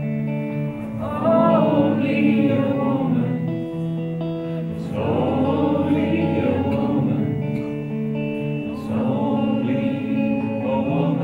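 Concert audience singing a chorus together as a crowd, in three phrases, over a strummed guitar.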